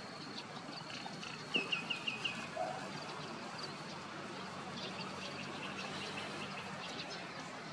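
A bird calling: a quick run of about six short, high chirps about one and a half seconds in, over a faint steady outdoor background.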